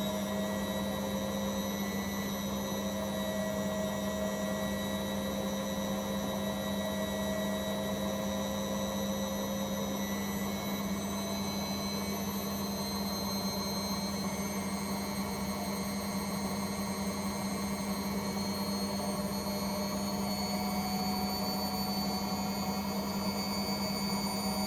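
Household appliance motor running steadily through a cleaning cycle: a strong low hum with faint whining tones that drift slowly upward in pitch.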